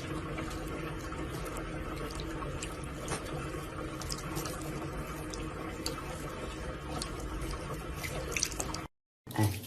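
Steady rushing noise under a faint hum, with scattered light clicks.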